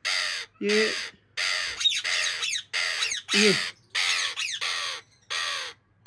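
Parrot held in the hand screeching harshly over and over, about nine short screams in a row, in distress as its chest feathers are plucked.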